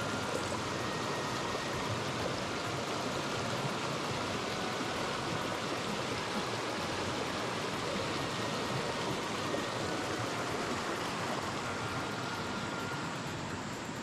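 Mountain stream rushing over a small rocky cascade: a steady white-water noise, easing slightly near the end.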